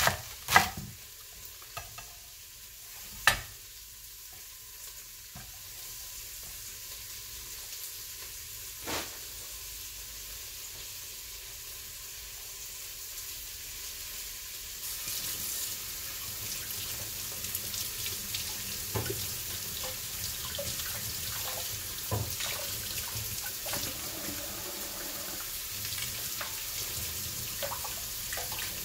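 A chef's knife chopping through celery onto a wooden cutting board: two sharp chops in the first few seconds and a lighter one later. About halfway through, a steady rushing hiss sets in and continues.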